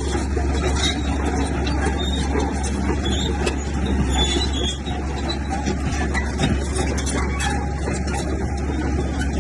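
Heavy diesel earthmoving machinery running steadily under load, a deep continuous engine rumble with scattered metallic ticks and squeaks over it.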